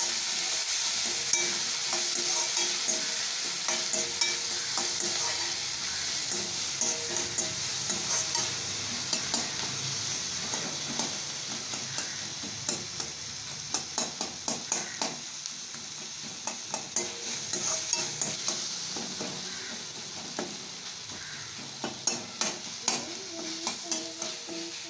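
Chopped onions and tomatoes sizzling in hot oil in a metal kadai, stirred with a steel spatula that scrapes and clicks against the pan. The spatula clicks come thicker and quicker in the second half.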